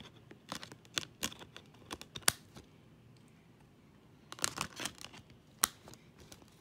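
Clear plastic Blu-ray cases being handled as discs are pressed back onto their hubs: a string of sharp plastic clicks and rattles in two groups, with a short lull between them.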